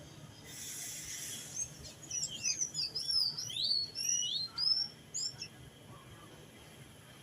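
A songbird singing a quick run of chirps and swooping whistles for about four seconds, after a brief hiss, over a faint low rumble of street traffic.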